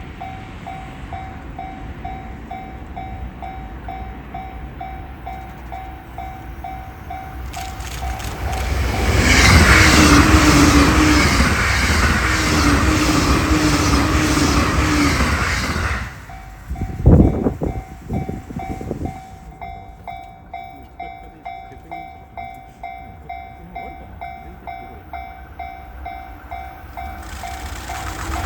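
A Japanese level-crossing warning bell rings in a steady, evenly pulsed pattern. About nine seconds in, a train on the Joban Line passes at high speed for about seven seconds: a loud rush with rhythmic wheel clicks over the rail joints and the whine of its electric motors. A few low buffeting thumps follow as it clears, and the crossing bell rings on.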